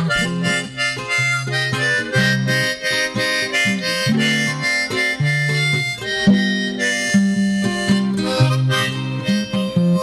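Harmonica playing a tune in chords, with short notes and some held ones.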